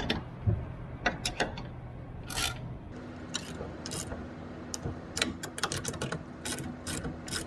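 Hand ratchet clicking in short, irregular runs as bolts on a metal mounting bracket are tightened, over a low steady hum.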